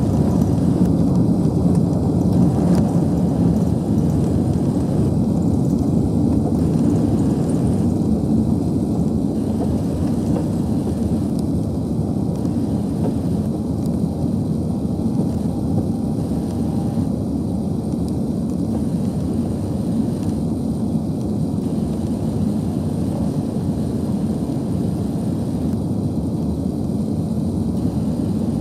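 Cabin noise of an Airbus A380-800 taking off, heard from inside the cabin: its four turbofan engines at takeoff thrust and the airflow make a steady, loud, low rumble through the takeoff roll and into the initial climb. The rumble eases slightly later on.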